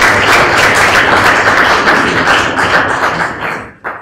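Audience applauding, a dense run of many hands clapping that fades away near the end.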